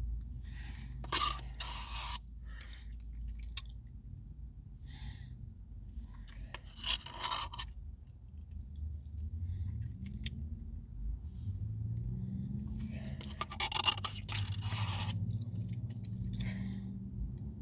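A spoon scraping the inside of an ice cream cup, with eating and chewing sounds. The scraping comes in three main bursts with smaller ones between. A low, wavering hum joins about ten seconds in.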